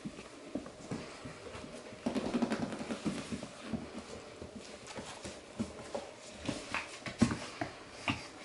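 Labradoodle puppies scuffling and playing on a fleece blanket over a hard floor: scattered light taps and knocks, with a denser scuffle for about a second, two seconds in.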